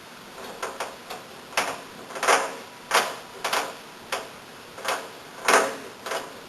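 Irregular sharp clicks and taps of a hand tool working small set screws into a vacuum hose nut, about a dozen in a few seconds.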